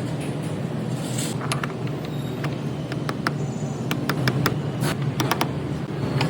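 Irregular sharp mechanical clicks, about fifteen of them bunched through the middle, over a steady low hum.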